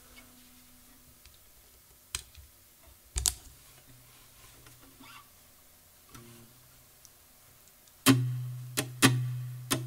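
A few faint clicks and knocks in a quiet room, then about eight seconds in a guitar jam starts loudly, with sharply struck notes over a steady low bass tone.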